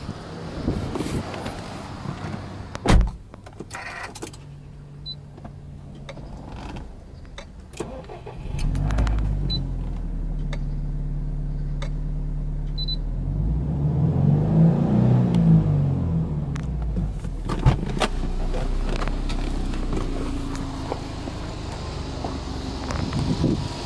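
Subaru Impreza WRX STI's turbocharged flat-four boxer engine starting up about eight seconds in, then idling steadily, with a brief rise and fall in revs a few seconds after it catches. A single thump comes about three seconds in, before the start.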